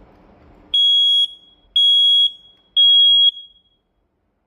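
Smoke alarm sounding on test: three loud, high-pitched beeps of about half a second each, evenly spaced, in the temporal-three evacuation pattern.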